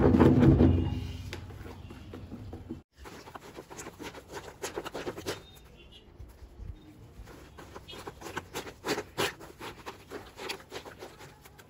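Clothes being hand-washed in a plastic tub of soapy water: loud churning and sloshing at first that dies away within about two seconds, then quieter, irregular splashes and squelches as the wet clothes are squeezed.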